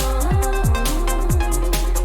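Electronic dance music from a DJ set: a steady kick drum about three times a second under a held synth tone.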